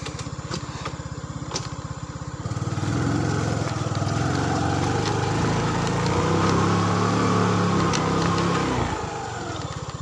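Small motorcycle engine running at low revs, then revving up and pulling harder from about two and a half seconds in, and easing back off about a second before the end.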